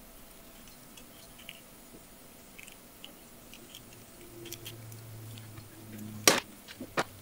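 Small plastic clicks and handling noises of a tiny snap-on doll dress being fitted onto a small fairy doll, with two sharp, louder snaps near the end, the first the louder.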